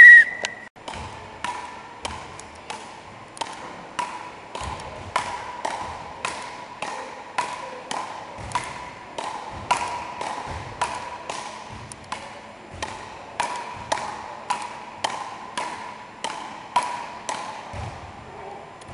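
A short, loud whistle blast at the very start, then a frescobol rally: paddles striking the ball in an even rhythm of about one hit every 0.6 seconds. Each hit is a sharp knock with a ringing echo from the hall, with soft thuds of feet on the wooden floor between hits.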